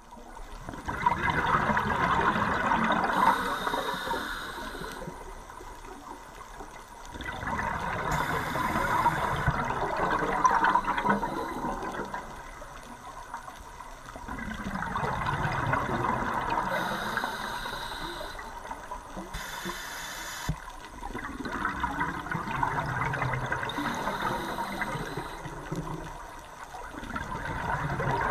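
A scuba diver breathing through a regulator, recorded underwater: a burst of bubbling exhaust bubbles about every six to seven seconds, with quieter hissing between.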